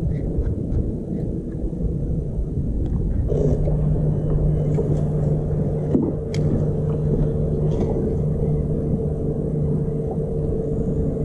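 Wind rumbling on the microphone, with the steady hum of an electric trolling motor coming on about three seconds in and running on.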